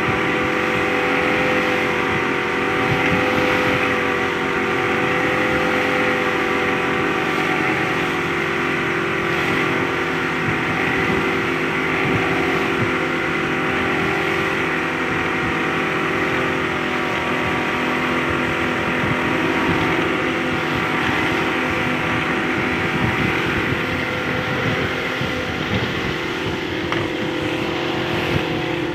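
Yamaha Enduro 60 hp two-stroke outboard motor running steadily at a nearly constant speed during an engine test.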